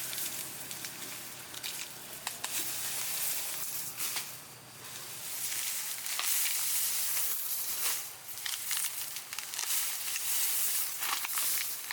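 Food sizzling in a hot pan, a steady hiss with scattered crackles and pops.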